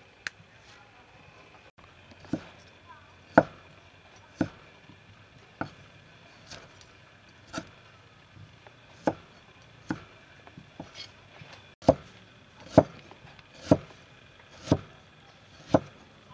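Cleaver slicing fresh ginger on a thick wooden chopping block: single chops about once a second, each a sharp knock of the blade on the wood, starting about two seconds in.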